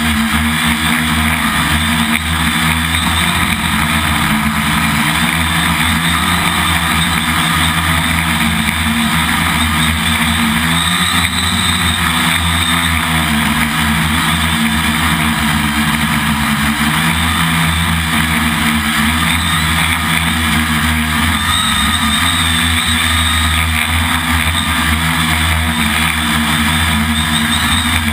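Quadcopter's electric motors and propellers buzzing steadily, close to the on-board camera, as the craft hovers; the pitch wavers slightly now and then.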